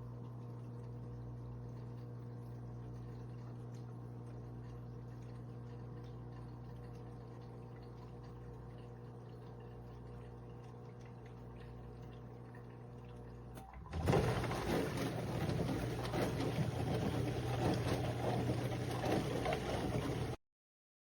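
AIRMSEN countertop mini dishwasher running: a steady motor hum, then about two-thirds of the way through a sudden switch to louder rushing, splashing water, which cuts off abruptly near the end.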